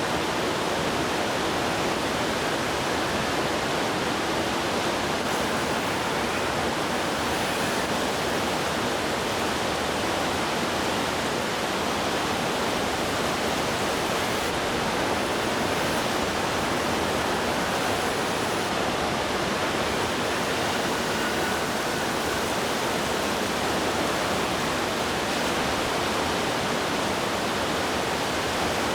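Heavy rain falling steadily, an even wash of noise with no break.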